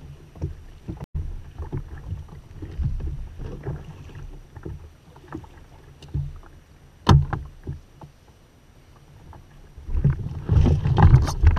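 Irregular knocks and thumps on a kayak's hull and deck as a large amberjack is hauled aboard and handled, with one sharp loud knock about seven seconds in and a louder flurry of thumps near the end.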